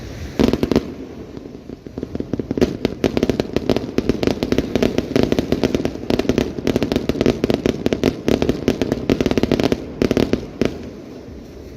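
Fireworks display: a few loud bangs near the start, then a long dense run of rapid crackling pops, many a second, that thins out near the end.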